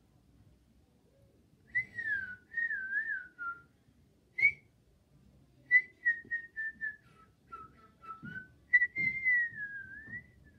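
A person whistling a tune: one clear, wavering note line in several short phrases with pauses between them. A few soft knocks come near the end.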